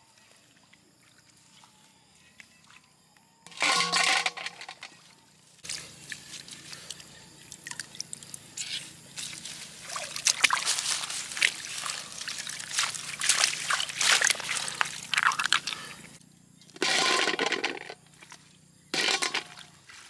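Shallow pond water sloshing, trickling and dripping as hands rummage through floating water hyacinth to pick snails. It has irregular splashes and several short, louder bursts after a quiet start.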